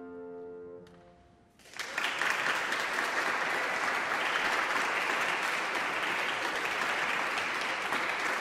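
The last piano chord rings and fades out in the first second, then audience applause breaks out and continues steadily.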